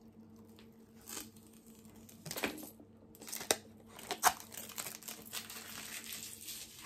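Thin plastic film being peeled off an eyeshadow palette and crumpled: irregular crinkling and crackling, with a few sharper snaps about two and a half, three and a half and four seconds in.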